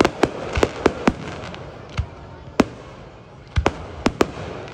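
Aerial fireworks shells bursting: about a dozen sharp bangs at uneven intervals, several in quick pairs, with a steady hiss between them.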